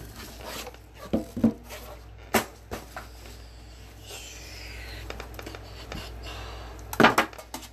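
Handling of an Upper Deck The Cup metal card tin: scattered taps and clicks, a soft sliding scrape in the middle, and a sharp cluster of metallic clacks about seven seconds in as the tin is set down and its lid worked.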